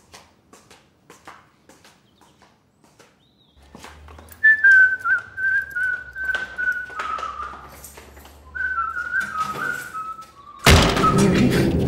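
Soft footsteps, then a person whistling a wavering tune for about six seconds. A loud thump comes near the end.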